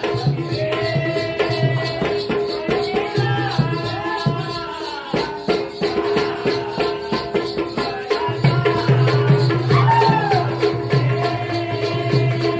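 Jakhadi folk dance music: singing over a fast percussion rhythm of drum strokes and jingling rattles, with a steady drone held underneath.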